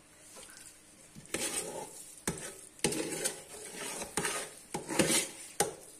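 Metal spoon stirring and scraping cooked rice around a large metal pot, starting about a second in, with several sharp clinks of the spoon against the pot. It is the mixing of fried rice into boiled rice.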